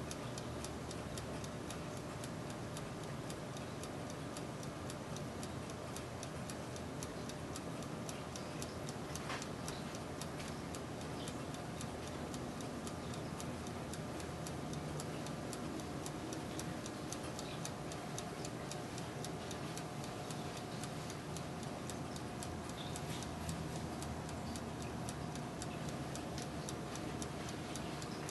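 Turbo convection oven running: a steady fan whir with rapid, even ticking, several ticks a second, from its clockwork timer. One sharper click comes about nine seconds in.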